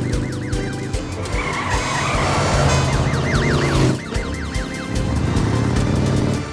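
Cartoon emergency-vehicle siren yelping in quick up-and-down wails, with a vehicle rush and tyre skid that cuts off about four seconds in, over background music.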